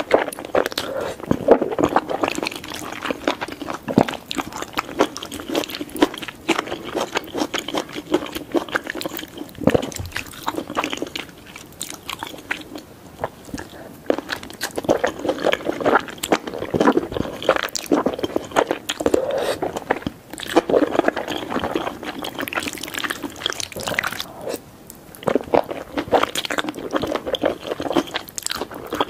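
Close-miked eating of wide glass noodles in a thick spicy sauce: wet slurping and chewing, with a dense, irregular run of mouth clicks and smacks.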